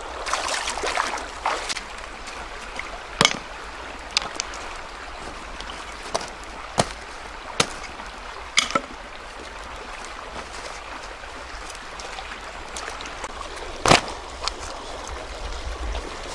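Shallow stream running steadily over stones, with splashing in the first couple of seconds. Several separate sharp knocks sound over it at irregular intervals, the loudest near the end.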